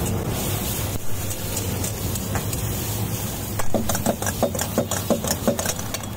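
Flat metal spatula stirring chopped onions and tomatoes frying in a hot iron kadai, sizzling over a steady low rumble. From about three and a half seconds in, a quick run of sharp metal clanks and scrapes as the spatula strikes the pan.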